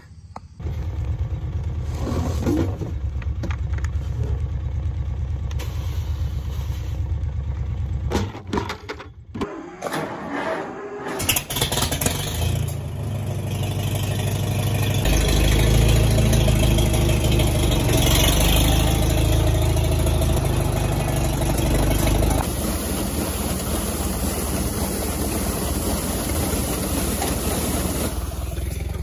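Old farm tractor engine running steadily, with breaks between takes around 8 to 11 seconds in. After that a louder steady machine noise as the tractor drives a feed grinder grinding barley, loudest in the middle stretch.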